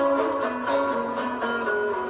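Background music on a plucked string instrument, a slow melody whose notes step downward.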